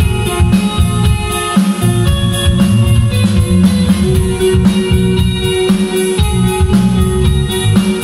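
Live rock band playing loud: electric guitar, electric bass and drum kit, with a steady drum beat under sustained guitar notes.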